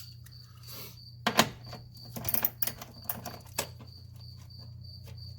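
Irregular clicks and knocks of hand tools working a 10 mm fastener, with crickets chirping steadily in the background.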